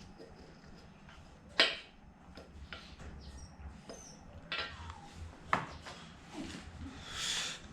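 Light metallic clicks and taps of a piston ring being handled and set in the cylinder bore to re-check its end gap after filing. The sharpest click comes about one and a half seconds in, another about five and a half seconds in, and there is a short rustle near the end.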